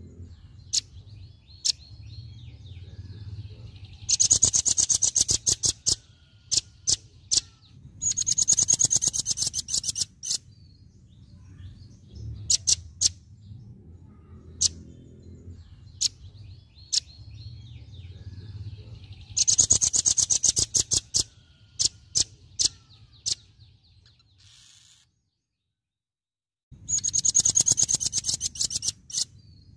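Velvet-fronted nuthatch singing its rapid 'tembakan' song: four very fast, high trills of about a second and a half each, with single sharp chip notes between them, over a low background rumble. The sound cuts out completely for about two seconds near the end.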